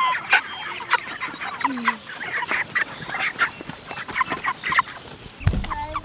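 A flock of white broiler chickens crowding a feed trough, giving many short overlapping peeps and clucks. A brief low rumble of the camera being moved comes near the end.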